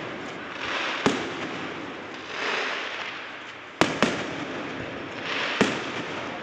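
Fireworks going off: a sharp bang about a second in, two more in quick succession a little before the four-second mark, and another near the end, with swells of hissing noise between them.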